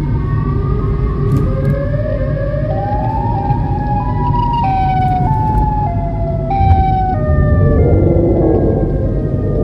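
An eerie siren-like wail, slowly rising over the first few seconds and then stepping between set pitches, stopping about eight seconds in. Under it runs the steady low rumble of the car's road noise while driving.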